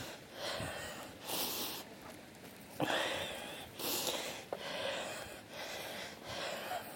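Heavy breathing close to the microphone from someone out of breath while hiking, with a hissy breath about once a second.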